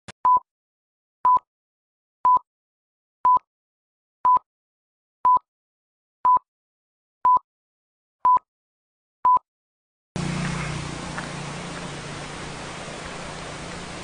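Film-leader countdown beeps: ten short, identical high beeps, one a second, with silence between. About ten seconds in, a steady outdoor rushing hiss with a low hum cuts in abruptly.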